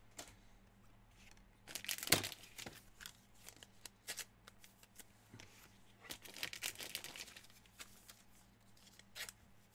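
Foil trading-card pack wrapper tearing and crinkling as cards are handled, in short faint bursts, loudest about two seconds in.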